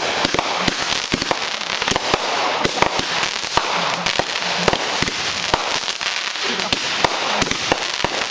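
Fireworks finale: a rapid, unbroken run of loud bangs from aerial bursts, several a second, over a continuous hiss.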